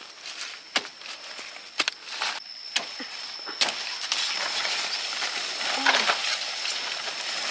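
A series of sharp knocks from a tool digging and chopping into soil and roots while harvesting wild taro, giving way to rustling after about four seconds, over a steady high-pitched whine.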